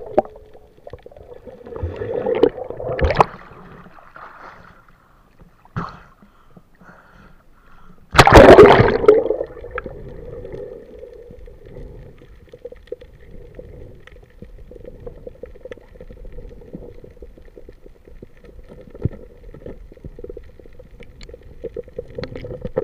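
Muffled water sloshing and gurgling heard underwater through an action camera's housing, with a loud rush of splashing bubbles about eight seconds in. A faint steady hum runs underneath after it.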